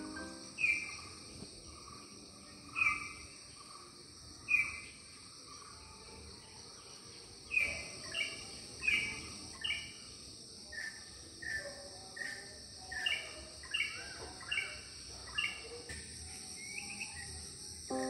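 A bird giving short, downward-sliding calls, a few seconds apart at first, then in a quicker run of calls through the middle and later part. Under it runs a steady high-pitched insect drone.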